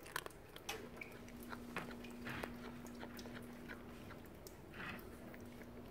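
A cat crunching dry kibble, with irregular crisp crunches and clicks as it chews pieces taken from its bowl.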